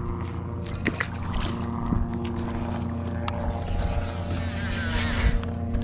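Bow-mounted electric trolling motor running with a steady hum, with a few sharp clicks from the fishing tackle as the spoon lure is handled and cast.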